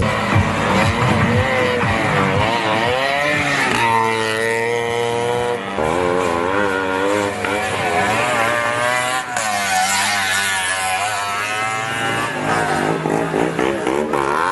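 Auto-rickshaw engines revving hard, their pitch rising and falling over and over as the throttle is worked.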